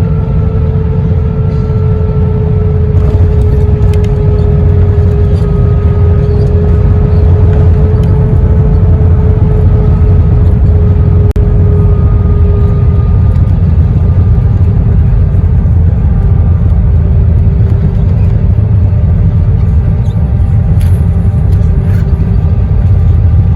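Cabin noise inside an Airbus A321-131 with IAE V2500 engines: a loud, steady low rumble with a jet engine tone that slowly falls in pitch.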